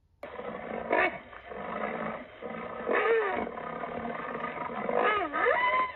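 Recorded rhinoceros calls played through a tablet speaker: a string of pitched calls, one about a second in, a longer gliding one in the middle, and a swooping call that dips and rises near the end.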